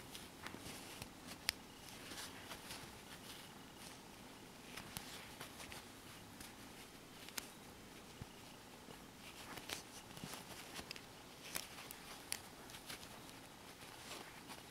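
Faint handling sounds of crocheting: soft scratchy rustles of yarn being pulled through and scattered light clicks from a metal crochet hook, over a low hiss.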